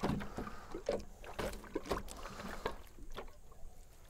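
Scattered light knocks and scuffs of a freshly sawn black cherry board being handled, with the sawmill not running.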